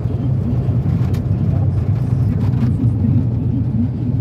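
Steady low rumble of engine and road noise inside the cabin of a moving vehicle, with a few faint clicks.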